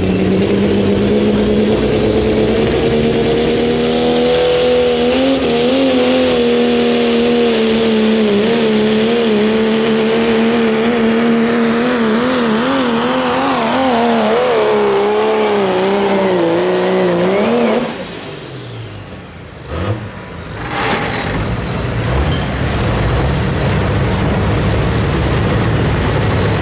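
Pulling vehicle's engine at full throttle under load, its pitch wavering up and down, with a high whine rising in about three seconds in and then holding steady. The engine bogs down, its pitch sinking as the sled's load builds, then cuts off suddenly, and after a short lull a broad steady rumble builds back near the end.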